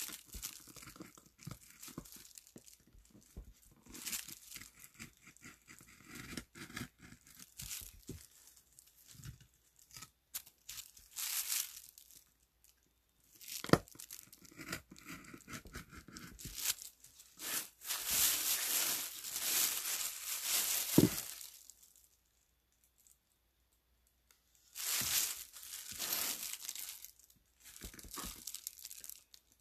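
Wood-carving tool cutting into a woodblock at close range. It makes irregular scratchy, crackling strokes as the wood is pared away, with a few sharp clicks. A longer, louder run of cuts comes about two thirds of the way in, followed by a brief pause and another short run.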